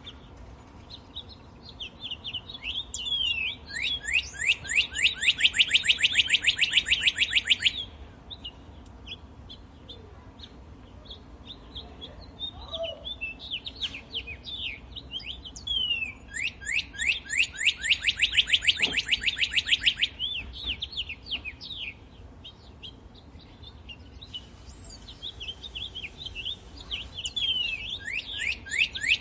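A songbird singing the same song three times, about every twelve seconds: scattered high chirps build into a loud, fast trill of quick down-slurred notes, roughly ten a second, that stops abruptly.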